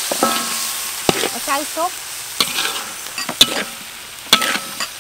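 Shallots, garlic and lemongrass spice paste sizzling in a wok while a metal spatula stirs them, scraping and knocking against the pan several times.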